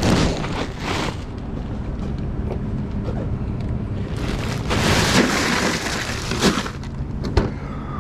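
A bag of ice being handled and emptied into a cooler of fish: plastic rustling, then a rush of rattling ice about five seconds in, with a couple of sharp knocks near the end, over a steady low rumble.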